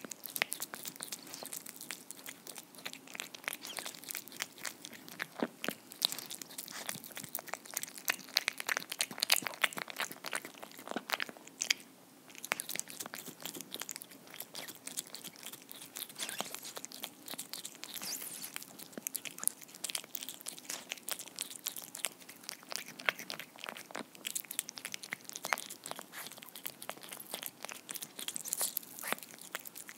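Domestic cat eating moist homemade tuna cake: rapid, continuous chewing, smacking and licking, with a brief lull about twelve seconds in.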